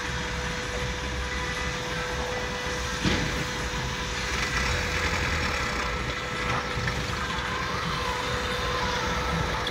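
Diesel engines of two working excavators, a Volvo EW145B wheeled excavator and a Doosan DX140, running steadily under load with a steady high whine over them as their buckets swing and dump sand into a tractor trolley. There is a sharp knock about three seconds in.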